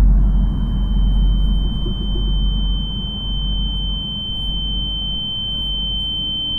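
A steady high-pitched ringing tone, the film's ear-ringing effect for a dazed character, over a deep low rumble that slowly fades.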